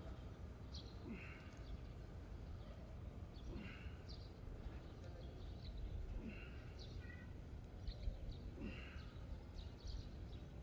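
Repeated exertion sounds from a seesaw pulldown workout, once about every two and a half seconds: each pull of the sack-weighted playground seesaw handles brings a short low rising note and then a brief hiss. Birds chirp now and then in the background.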